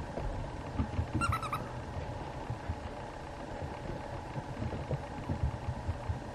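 Mame shiba puppy giving a short, high-pitched whimper of a few quick notes about a second in, over steady background noise and scattered low knocks.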